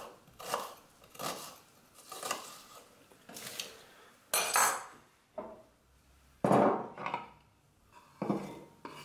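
Kitchen knife chopping onion on a bamboo cutting board, with separate strokes about once a second. From about four seconds in come louder knocks and scrapes as the board is handled and the diced onion is scraped off it into a bowl.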